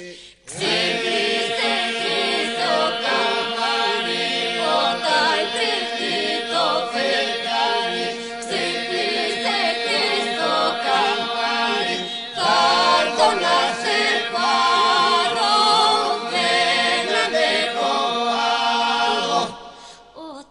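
Traditional Epirus polyphonic folk singing, a cappella: a group of voices holds a steady drone under a wavering lead line. The voices come in after a brief gap about half a second in, and drop away near the end.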